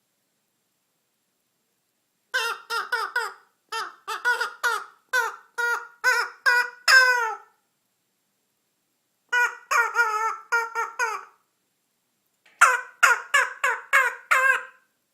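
African grey parrot calling in quick runs of short, pitched syllables, about three a second. There are three runs, the longest about five seconds, each separated by a pause of silence.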